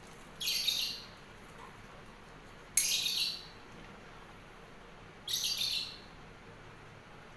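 A bird calling: a short, high chirping phrase repeated four times, about every two and a half seconds.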